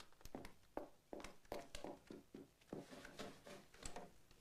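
Faint footsteps, a few soft, irregular steps a second, with light rustling of clothing as a person walks away.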